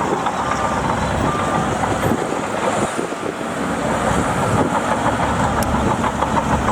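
Heavy earthmoving machinery running steadily with a diesel engine, with a fast, even clatter of ticks over the last couple of seconds.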